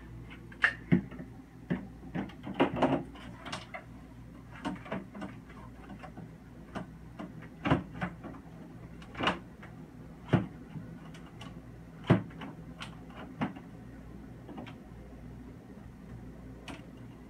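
Irregular clicks and knocks of freezer parts being handled and fitted back in place while an evaporator fan is reinstalled, over a faint steady low hum.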